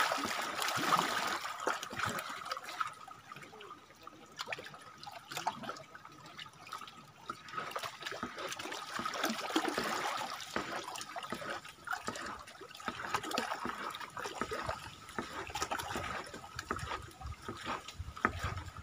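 Water trickling and splashing in and around a small wooden outrigger canoe, with scattered small knocks.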